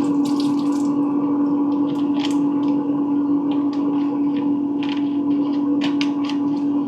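A steady electric hum from a kitchen appliance, with scattered light clicks and knocks of things being handled.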